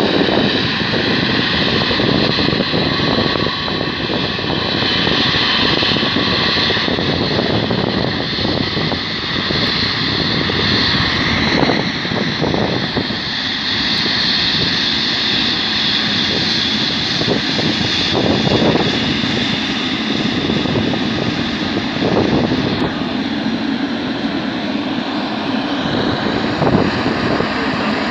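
Boeing 777-300ER's two GE90-115B turbofans running at taxi power as the jet taxis past: a steady jet rush with a high whine from the fans.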